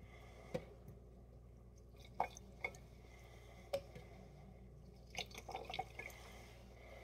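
Sparkling water dripping from a tilted, opened aluminium can: a few separate drops, then a short quick run of drops about five seconds in.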